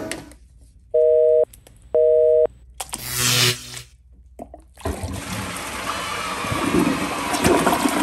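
Two identical electronic beeps, each about half a second long, and a brief whoosh. Then, about five seconds in, a toilet flushes: a steady rush of water drains the bowl full of cereal.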